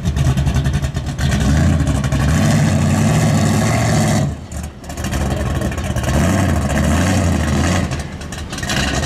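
Supercharged engine of a big-body early-1970s Chevrolet donk revving as the car pulls away. The engine sound drops out briefly about four and a half seconds in, then picks up again.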